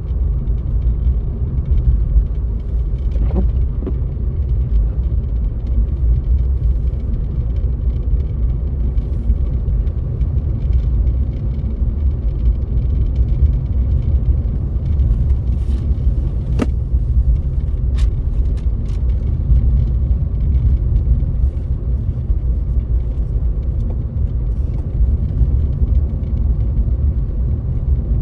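Steady low rumble of a car driving on a snowy road: tyre and engine noise. Two short sharp clicks come about two-thirds of the way through.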